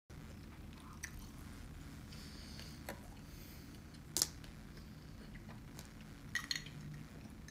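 Faint mouth sounds of chewing a mouthful of rice and curry, over a low room hum. A few sharp clicks and taps break in, the loudest about four seconds in, with a small cluster about three-quarters of the way through as a drinking glass is handled.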